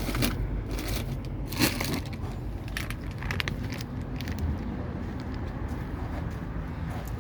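Irregular knocks and scrapes, the sharpest about a second and a half in, over a steady low hum.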